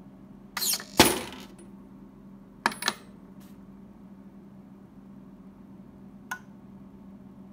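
Brass rifle cartridge cases clinking and clattering as the induction annealer cycles from annealing to loading: a short rattle, then a loud metallic clink that rings on briefly about a second in, two lighter ringing clinks near three seconds, and a faint tick about six seconds in. A steady low hum runs underneath.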